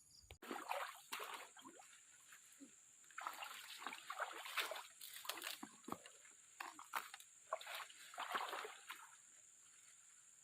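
Water splashing and sloshing in short, irregular strokes for about nine seconds, then stopping.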